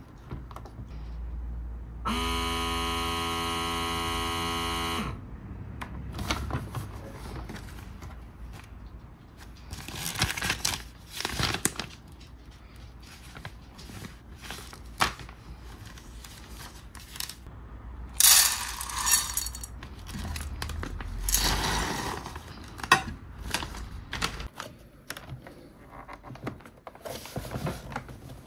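Vacuum sealer and plastic vacuum bags being handled: crinkling bag plastic and clicks and knocks from the machine's lid. A steady buzzing hum lasts about three seconds a couple of seconds in.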